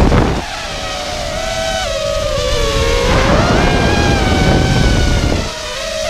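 Brushless motors of a GEPRC LX5 FPV quadcopter whining, the pitch sagging about two seconds in and climbing again near three seconds as the throttle changes. Wind rushes over the microphone at the start and again near the end.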